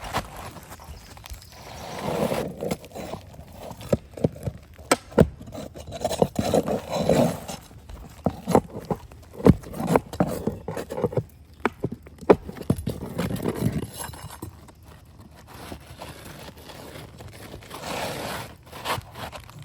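Asphalt roof shingles scraping and rustling while being worked loose and replaced, with irregular sharp knocks of hand tools on the roof. The scraping comes in several bursts with pauses between, and the knocks cluster in the middle.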